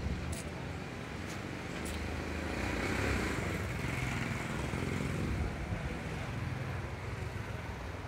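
Street traffic with a motor vehicle passing by, its engine noise swelling to its loudest about three seconds in and then fading.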